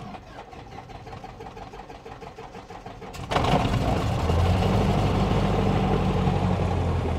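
Cessna 172's four-cylinder piston engine being started, heard from inside the cabin: the starter cranks it over for about three seconds, then the engine catches with a sudden jump in loudness and settles into a steady run at low rpm.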